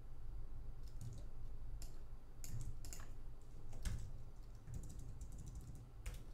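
Computer keyboard keys clicking: scattered single key presses, then a quick run of taps about five seconds in.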